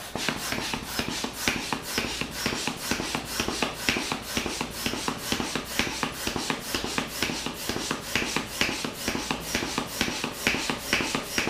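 Hand-held piston air pump worked up and down in rapid, regular strokes, each stroke a short rushing, rubbing puff, inflating an inflatable boat.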